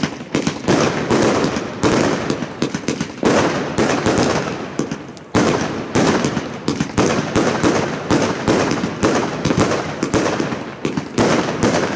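A 100-shot, 1.2-inch consumer fireworks compound cake firing in rapid succession: a steady string of launch thumps and aerial bursts, a few shots a second, with the reports overlapping.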